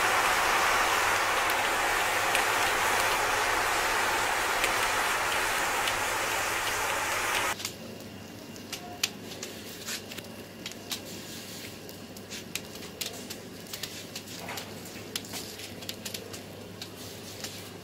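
A mass of burning wooden matchsticks makes a loud, steady rushing hiss of flame. About seven seconds in this gives way abruptly to a quieter fire with scattered crackles and pops.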